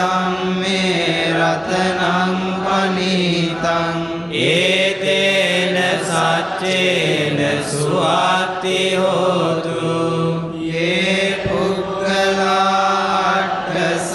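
Buddhist pirith chanting in Pali: voices recite a protective text in a rising and falling melodic line over a low, steadily held pitch.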